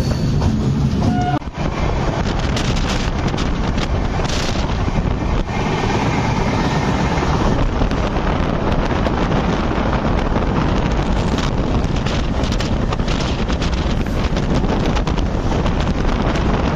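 Wind rushing over the microphone held out of a moving passenger train's open door, over the steady rumble of the coach running on the track with scattered clatter.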